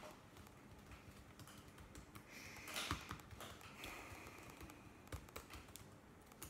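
Faint, irregular clicking of a laptop keyboard or trackpad being tapped, with a short breathy noise about two and a half seconds in and another around four seconds.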